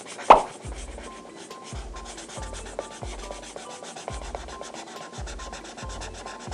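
Felt-tip marker rubbing on paper in quick back-and-forth strokes as an area is coloured in. A single sharp tap about a third of a second in is the loudest sound, and soft low thumps come about once a second.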